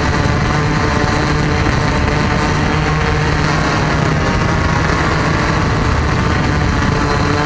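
Small multirotor drone's motors and propellers buzzing steadily at a nearly constant pitch while it hovers low, heard loud and close through the drone's own camera.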